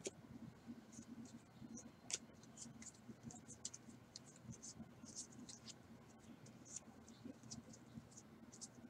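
Trading cards being flicked one by one off the front of a hand-held stack, each one a faint short swish of card sliding on card, two or three a second, over a faint steady low hum.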